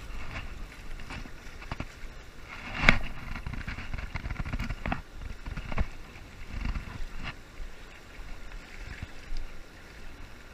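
Wind buffeting the microphone over the rush of choppy river water, with a few sharp knocks, the loudest about three seconds in.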